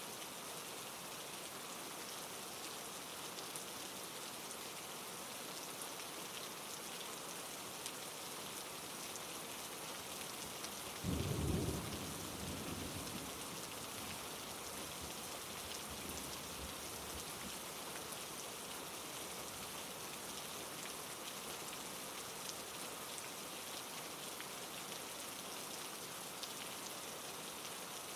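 Steady rain falling, with one sudden low clap of thunder about eleven seconds in, loudest for about a second, then dying away over a few seconds.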